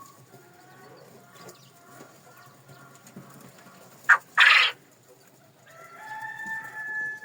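Chickens clucking softly, then two short, loud, noisy bursts just after four seconds in. Near the end a rooster crows, one long held note that grows louder.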